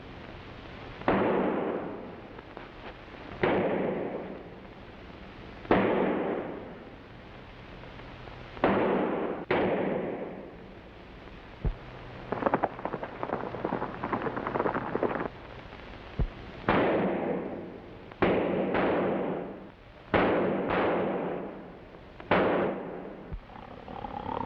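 Gunfire in a Western shootout on an early sound-film track: about a dozen rifle shots at uneven intervals, each followed by a long echoing tail, with a run of rapid crackling shots in the middle.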